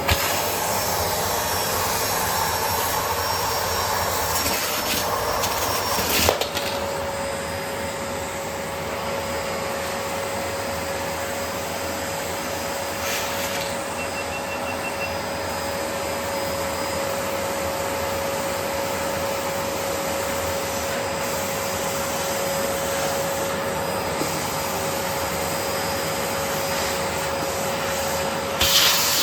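Bosch BGS21X320 bagless vacuum cleaner running steadily with a continuous rushing noise. A sharp knock comes about six seconds in, and after it a steady whine holds to the end; a brief clatter comes near the end.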